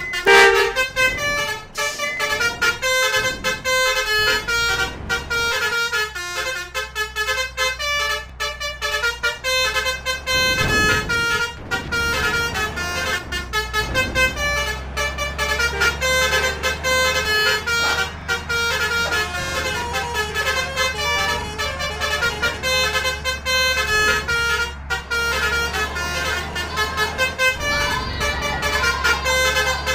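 Telolet multi-tone air horns on Indonesian buses playing fast melodic runs of short notes, with a bus engine's low hum underneath.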